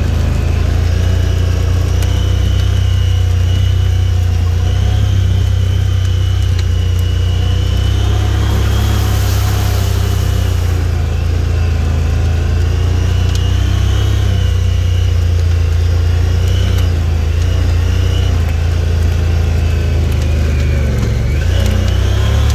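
Vehicle engine running as it drives slowly over a snowy dirt track, heard from inside the cab: a steady low drone whose pitch rises and falls a little with the throttle.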